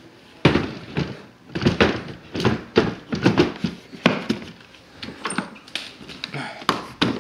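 Hard plastic Ridgid tool cases being handled and latched: a quick series of hollow thunks and clacks from the cases and their latches knocking together, starting about half a second in.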